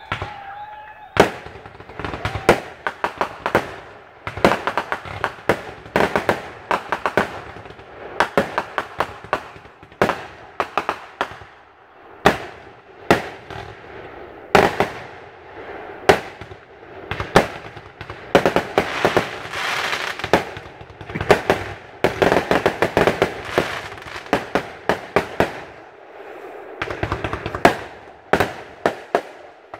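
Aerial fireworks bursting in a continuous barrage: many sharp bangs, closely bunched at times, with crackling between them and a short lull near the end.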